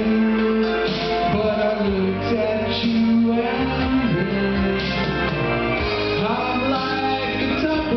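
A country band playing a song live, with held and sliding notes over a steady beat.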